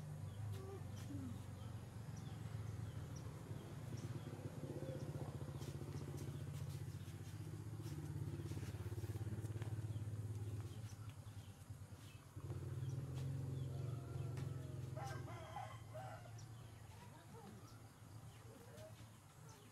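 A rooster crowing in a village yard over a steady low hum; a short pitched call stands out about three-quarters of the way through, and the hum drops away briefly a little past halfway.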